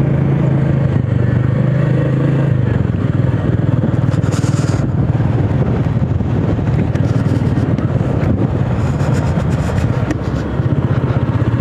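Royal Enfield motorcycle engine running steadily while riding, heard from the saddle with road noise and a brief hiss about four seconds in.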